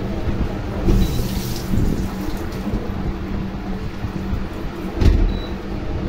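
Miyako freestanding dishwasher running, with a steady whir and water swishing inside. Two short high beeps come from its control panel as buttons are pressed, about a second in and again near the end.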